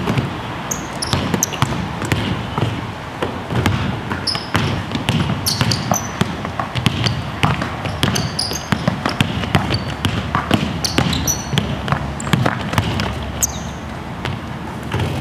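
Basketballs being dribbled fast, bouncing over and over on the court floor, with short high squeaks among the bounces.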